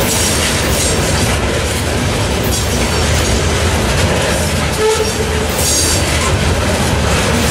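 Loaded rock hopper cars of a freight train rolling past: a steady, loud rumble of steel wheels on rail. A few brief high-pitched squeals come from the wheels, about every three seconds.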